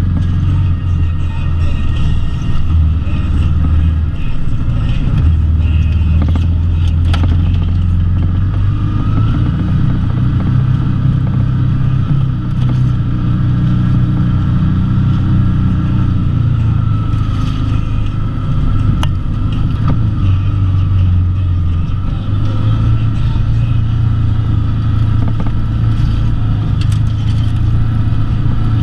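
Can-Am Maverick X mr side-by-side's engine running on the trail, its note rising and falling a few times with the throttle, with a few sharp knocks and clatters from the rough ground.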